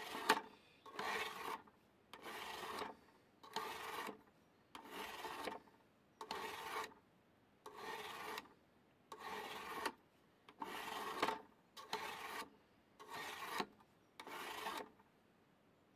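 Steel knife blade drawn across a coarse diamond sharpening plate: about a dozen even strokes, roughly one every second and a quarter, stopping near the end.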